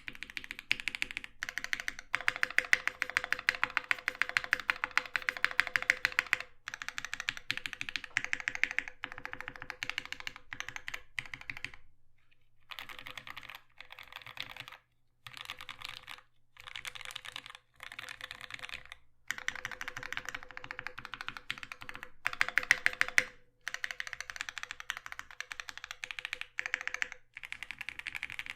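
Fast typing on a custom 65% mechanical keyboard with lubed, filmed C3 Tangerine v2 linear switches, GMK Mizu ABS keycaps and a thick aluminium integrated plate: a dense run of keystroke clacks. It breaks off briefly about twelve seconds in and stops and starts several times over the next few seconds.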